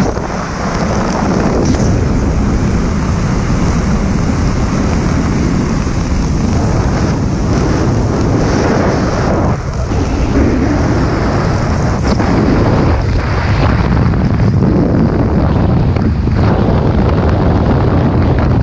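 Loud, steady wind noise on the microphone of a skydiver's camera as air rushes past during the descent.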